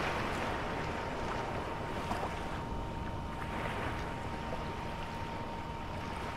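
A steady rushing noise, like surf or wind, with a constant high-pitched tone held over it.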